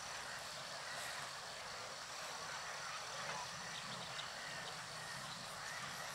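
Steady rush of shallow river water running over stones, with a few faint short calls above it.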